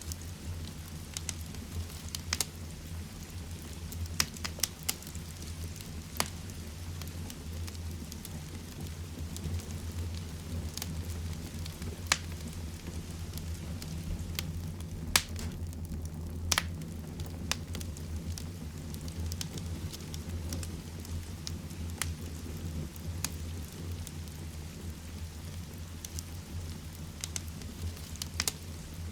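Heavy rain falling steadily together with a wood fire burning in a fireplace, its crackles and pops coming at irregular intervals over the rain, one sharp pop standing out about halfway through.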